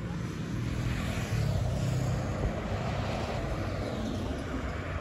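Engine rumble of a passing vehicle, swelling about a second in and easing off slightly toward the end.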